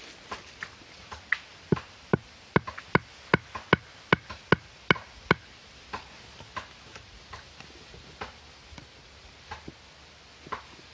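Wood being struck: a quick, even run of about a dozen sharp knocks, two or three a second, then a few fainter, scattered knocks.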